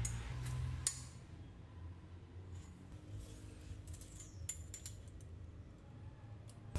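Scattered small metallic clicks and clinks as a thin wire cable is handled and threaded through a hand lever, over a low steady hum.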